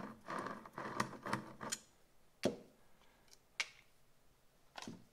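Screwdriver backing a small steel screw out of a metal amplifier board, a rapid run of small scraping, grinding clicks for about the first two seconds, then a few separate light clicks as the screw and tool are set down.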